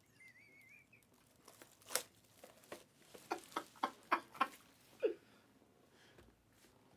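Light clicks and taps from handling trading card boxes and packs, about a dozen scattered over three seconds, after a faint wavering whistle-like tone at the start.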